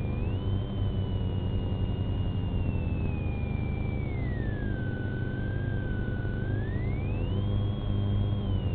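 A siren wailing slowly: its pitch falls a little before halfway, holds low, and rises again near the end. A steady low vehicle rumble runs underneath.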